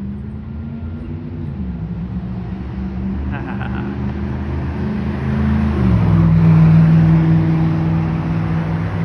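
A motor vehicle engine running steadily with a low hum. Its pitch drops twice, and from about six seconds in it turns louder and lower.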